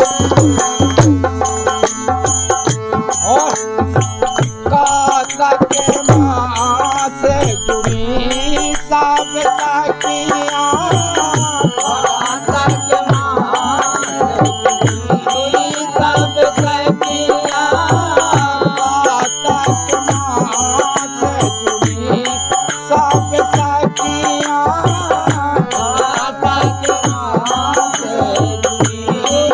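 Indian folk devotional music from a harmonium with a dholak and small hand cymbals. The cymbals tick out a steady beat over the held harmonium notes.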